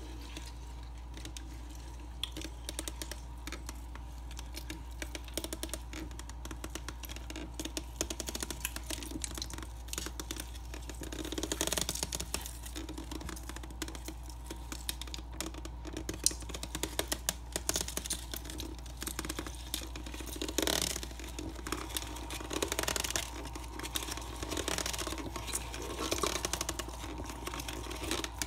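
A Gideon hand-cranked plastic meat grinder being turned, its feed screw forcing beef chunks through the cutting blade and plate: a steady run of small clicks and crackles, with louder stretches in the second half.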